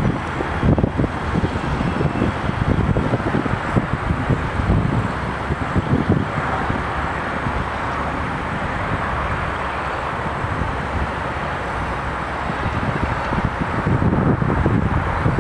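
Wind buffeting the microphone in uneven gusts over a steady distant rumble. The gusts are strongest in the first half and again near the end, with a calmer stretch in between.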